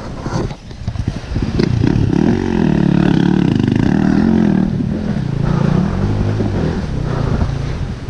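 Dirt bike engine revving up and down in uneven swells as it is worked over rocks, after a brief drop about half a second in.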